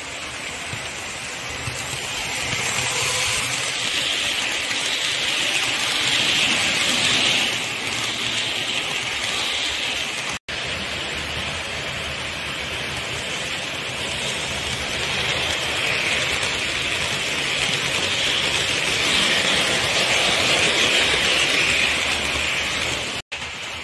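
Model electric trains running on metal track: a steady rushing whir of wheels and motors. It swells twice as trains pass close by, and cuts out for an instant about ten seconds in and again near the end.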